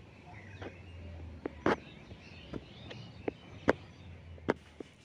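Irregular sharp knocks and clicks, two of them loud, over faint bird chirps and a low steady hum.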